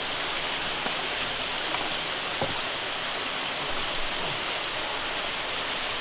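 Steady rushing of a mountain stream spilling over a small waterfall, with a few faint light clicks.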